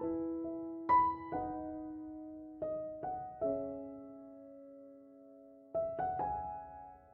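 Slow, gentle solo piano music: single notes and chords struck every second or so, each left to ring and fade.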